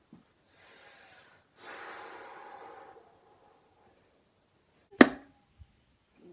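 Two soft breaths, then a thrown dart hits a dartboard with one sharp thud about five seconds in, followed by a faint knock.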